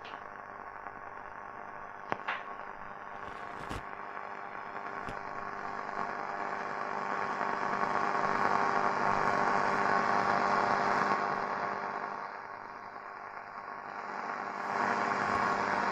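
Loewe-Opta Magnet 3737W tube radio's loudspeaker giving off static hiss over a steady hum as it is tuned with the volume at maximum, with no station coming in. The noise swells louder about halfway through, falls back, then rises again near the end, with two sharp clicks at about two and four seconds in.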